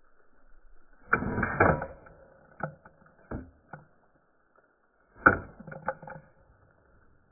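Metallic clicks and rattles of hands working the action of a Cobray Terminator 12-gauge shotgun. A burst of clicking comes about a second in, a few single clicks follow, and a second burst comes about five seconds in.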